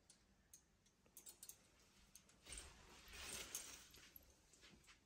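Near silence: room tone with a few faint clicks and a soft rustle in the middle.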